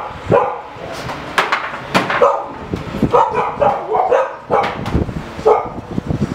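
A dog barking repeatedly: a run of short barks, several in quick succession around the middle, spaced about half a second to a second apart.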